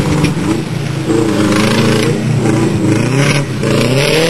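Rallycross car's engine revving hard, its pitch rising and falling several times as the driver accelerates and lifts around the dirt track.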